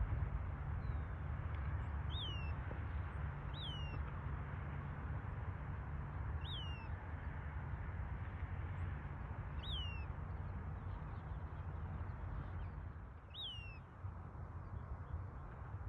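Western wood-pewee calling: five short, down-slurred whistled notes spaced a few seconds apart, over a steady low rumble.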